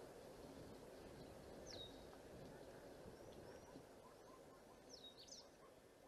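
Faint bird calls over a steady low background hiss: a sharp downward-sweeping chirp about two seconds in and a quick cluster of them near five seconds, with softer short calls in between.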